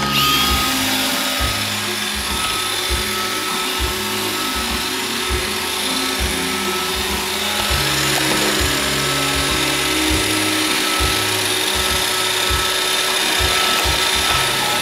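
iRobot Roomba 560 robot vacuum running: its vacuum motor spins up with a rising whine at the start and then holds a steady whine. Beneath it is a low mechanical hum from the brush and wheel motors, which shifts in pitch a few times, with scattered light clicks and knocks.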